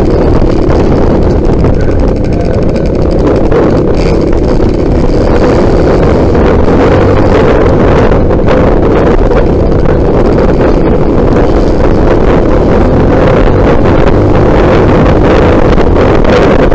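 Trail motorcycle engine running steadily and loudly while riding, with wind rumbling on the microphone.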